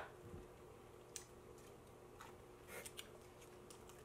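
Near silence broken by a few faint, scattered clicks and crinkles of small plastic packaging being handled: a condiment packet and a sealed plastic dipping-sauce cup.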